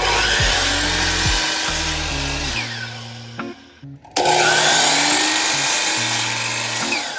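Power miter saw cutting wood trim at a 36¾-degree miter setting, twice. Each cut starts abruptly, runs about three to four seconds and winds down with a falling whine. Background music plays underneath.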